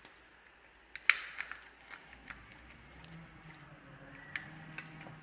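A few sharp clicks and small taps from wires being worked into the terminals of a dimmer module. The loudest click comes about a second in, with smaller ones scattered after it.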